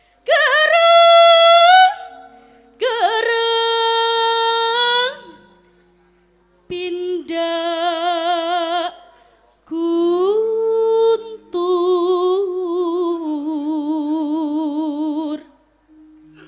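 Javanese sinden (female gamelan singer) singing solo into a microphone: five long, held phrases with a wide vibrato, separated by short pauses. Faint held instrument notes sound underneath.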